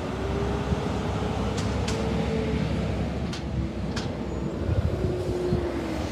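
Diesel garbage truck engines running as the trucks drive by: a steady low rumble with a faint whine that rises and falls twice. A few sharp clicks are heard in the middle.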